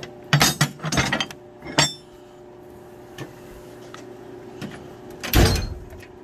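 Heavy steel hand tools (large wrenches, sockets, air impact guns) clanking against each other in a metal toolbox drawer, a quick run of clinks in the first two seconds, then the steel drawer sliding shut with a loud bang about five seconds in. A faint steady hum sits underneath.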